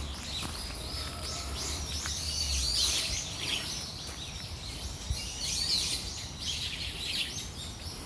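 Many small birds chirping together, a dense chorus of quick high chirps and downward-sweeping notes overlapping without a break. A low rumble sits under them for the first three seconds or so.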